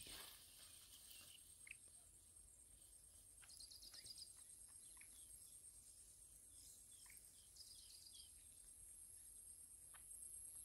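Faint outdoor ambience: a few short bird chirps and trills over a steady high-pitched insect drone.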